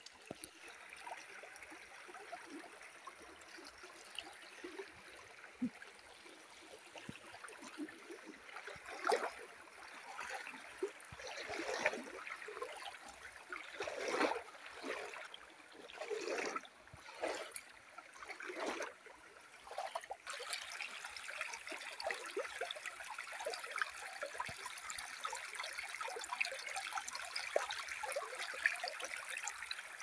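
Shallow stream trickling and running over a sandy, stony bed as a steady watery hiss. For a stretch in the middle, louder irregular swells and knocks come and go.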